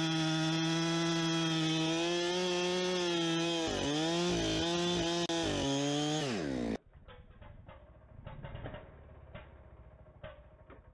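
Two-stroke chainsaw running at full throttle while bucking firewood logs; its pitch dips and recovers several times, then falls. About two-thirds of the way through, the sound cuts off abruptly and gives way to faint, irregular tapping.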